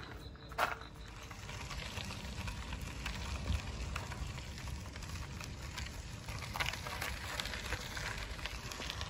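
Outdoor background noise: a low, uneven rumble with a faint steady crackle, and a few brief sharp sounds, the clearest about half a second in.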